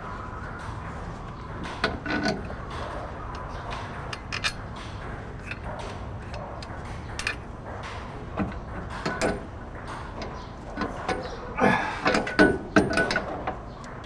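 Hand tools and metal parts clinking and knocking irregularly during work on a car's shock absorber mounting. A cluster of louder metallic knocks, some with a short ring, comes near the end.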